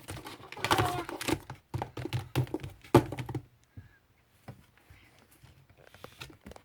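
Small objects handled on a tabletop: rustling and a run of light knocks, the sharpest about three seconds in, then only faint scattered ticks.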